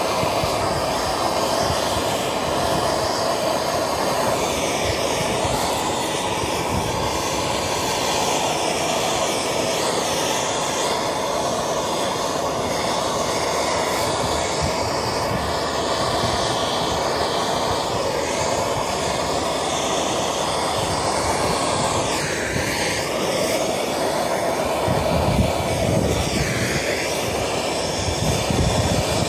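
Gas torch flame running with a steady rushing hiss, preheating a cast iron part before welding.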